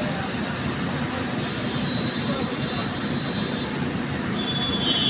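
Cat excavator's diesel engine running steadily, with a faint high whine coming in about a second and a half in.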